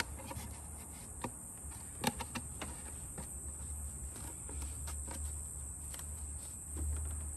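Steady high-pitched insect chirring in the background, with a few faint, irregular clicks and taps as a toothed rubber timing belt is worked by hand onto the metal cam pulleys.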